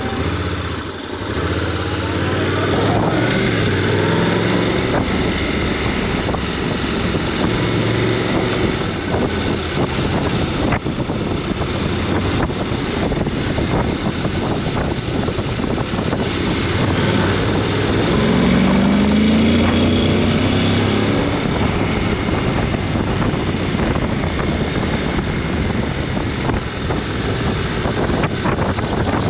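Honda NC750X DCT's parallel-twin engine running as the motorcycle is ridden, under a steady rush of wind and road noise. About two-thirds of the way through, the engine note rises in pitch as the bike accelerates.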